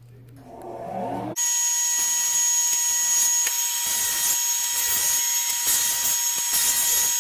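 A short rising hum, then from about a second and a half in a JET drum sander and its dust collector running loud and steady with a high whine. A glued-up wooden panel is being fed through to level it.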